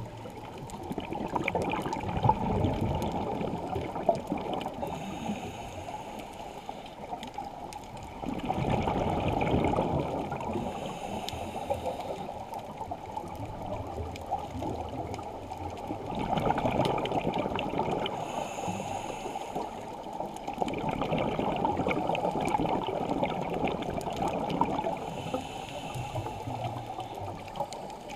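Scuba diver breathing through a regulator underwater: bubbling, gurgling rushes of exhaled air come in long surges every several seconds, with faint hissing inhales between them.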